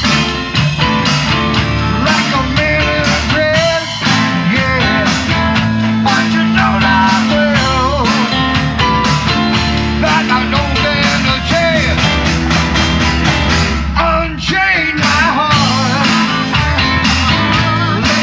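A live rock band playing a song, with keyboard chords and an electronic drum kit keeping a steady beat under a bending melodic lead.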